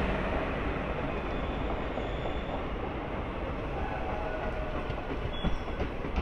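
Passenger coaches of an express train rolling past at speed, a steady rumble of wheels on the track that eases a little, with a few sharp clacks of wheels over rail joints near the end.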